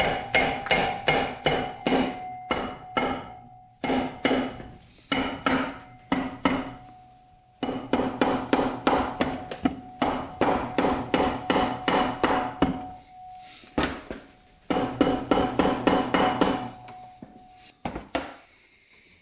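Mallet blows on the aluminium crankcase of a Honda XR100 engine, knocking the case halves apart now that the case screws are out. The blows come at about four a second in several runs with short pauses, and a ringing note sounds under each run.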